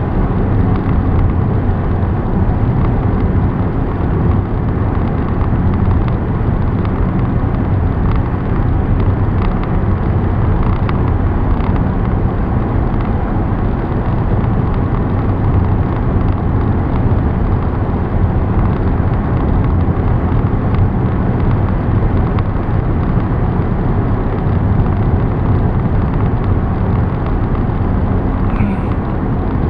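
Steady road noise of a car driving at highway speed: an even rumble of engine and tyres, with no changes or separate events.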